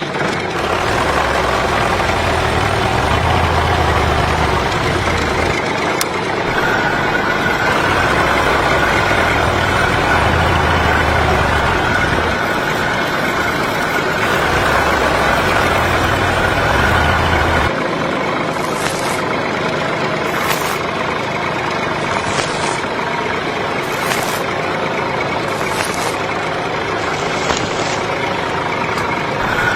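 A heavy engine, like a tractor or truck, running steadily. Its low rumble changes about two-thirds of the way through, and after that come about six short hisses a second or two apart.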